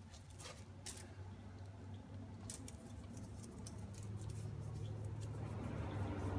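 Scattered light clicks and scrapes of hands handling parts in an engine bay, over a steady low hum.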